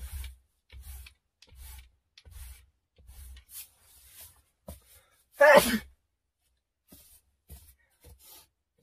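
A person sneezing: a run of soft, short breathy puffs, then one loud sneeze about five seconds in that falls in pitch.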